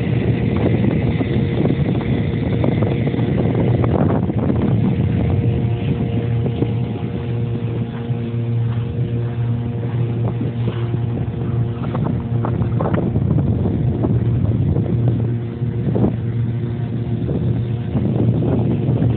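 Outboard motor of a MacGregor 25 sailboat running at a steady speed, a constant low drone. Water splashes against the hull now and then, and wind buffets the microphone.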